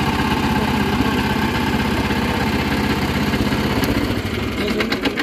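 Walk-behind tractor engine idling steadily with an even, rapid beat, weakening near the end.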